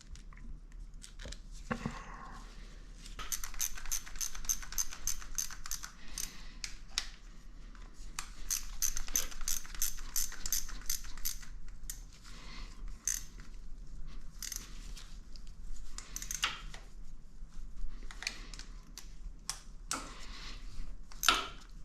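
Hand tools and small metal engine parts clicking and clinking, with runs of rapid clicks and scattered single clinks, as the old cam chain tensioner is refitted to a Honda TRX400EX engine. A faint steady low hum underneath.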